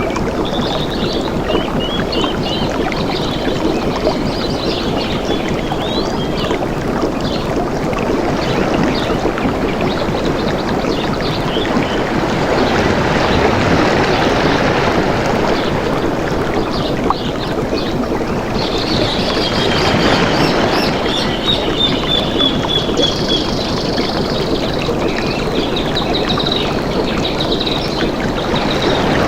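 Steady flowing water, with birds chirping over it and a run of trilled calls about two-thirds of the way in.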